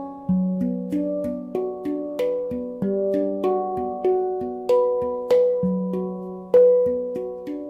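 Background music: a melody of struck or plucked notes, each starting sharply and dying away, about two to three a second.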